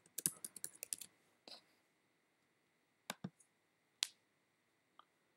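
Typing on a computer keyboard: a quick run of keystrokes in the first second, then a few single clicks spaced out, the sharpest about four seconds in.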